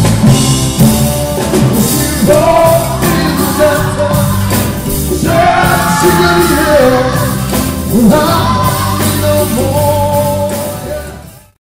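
Rock band playing live with singing over drums and bass. The sound cuts off abruptly near the end.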